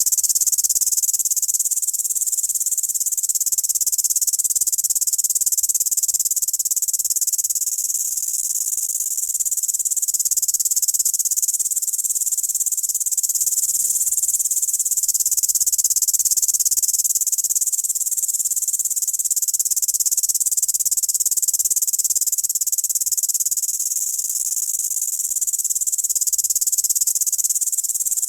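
Grasshopper stridulation: a continuous high-pitched buzzing chirr that never breaks, swelling and easing slightly every few seconds.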